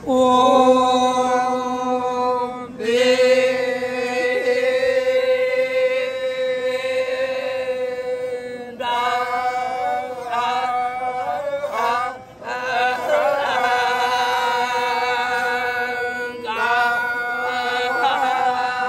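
Torajan badong funeral chant: a group of voices chanting long, drawn-out notes together, with four short breaks between phrases.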